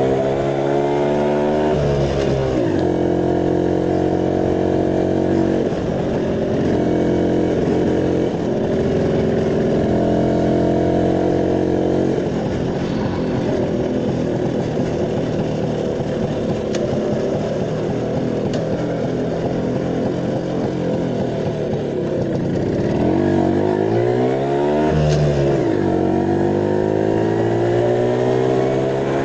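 Small engine of a moped or motorised bike running under way. It rises in pitch as it speeds up at the start, holds a fairly steady note, then drops and picks up again twice more near the end as the throttle is eased and reopened.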